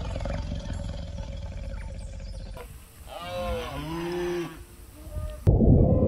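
Lion vocalizing: a low rumble, then a drawn-out call that rises and falls about three seconds in. About five and a half seconds in it cuts abruptly to louder underwater noise with a steady whale call.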